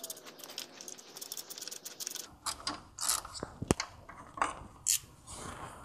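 Hand ratchet clicking as it turns a 10 mm bolt, a quick run of clicks for about the first two seconds. Then come scattered metal clinks and knocks of tool and parts.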